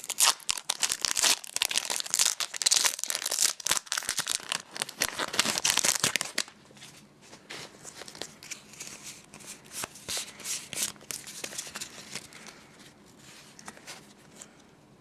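A foil Pokémon booster pack wrapper being torn open and crinkled, a dense crackling for about six seconds, then dropping to quieter scattered rustling as the cards are handled.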